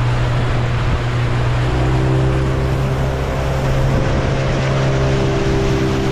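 Boat outboard motor running steadily at cruising speed, a constant low hum, with water rushing past the hull and wind noise.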